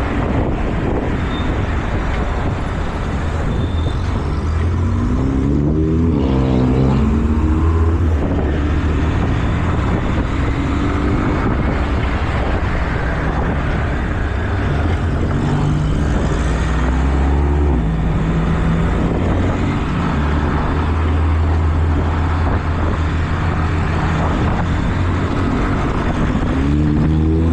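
Volkswagen Jetta's exhaust rumbling loudly with a steady low drone. The revs rise sharply twice, around six seconds in and near the end.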